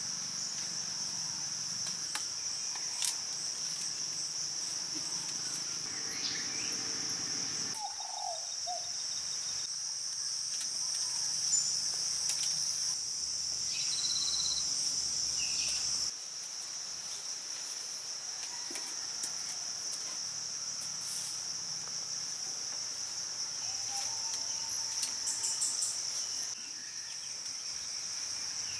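Insects chirping in a steady, high-pitched outdoor chorus, with a few short chirps over it. The background changes abruptly about a quarter of the way in, again around halfway, and near the end.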